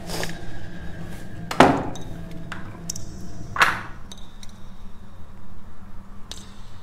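Three sharp clanks with a short ringing tail, a second or two apart, the middle one the loudest, with a few fainter clicks, over a low steady hum.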